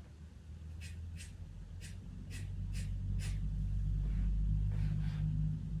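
Pastel pencil scratching on pastel paper in about eight short, quick strokes laid down to build up fur. Underneath is a steady low rumble that grows louder about two seconds in.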